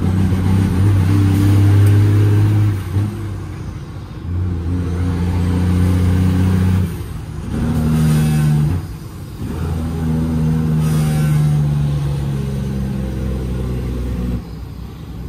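Straight-piped Cummins ISX diesel truck engine heard from inside the cab, pulling the truck along through the gears. The engine note dips briefly at each of about four gear shifts and then picks up again.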